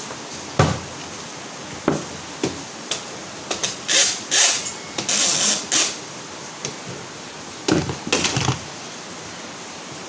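Objects in a pile of old toys and junk being handled and shifted: scattered knocks and clatters, with bursts of rustling about four seconds in and again near eight seconds. Underneath is a steady hiss of heavy rain.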